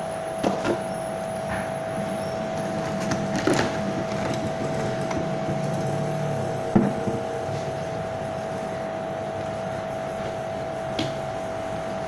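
Steady background hum with a constant mid-pitched tone over a low rumble, broken by a handful of short light clicks.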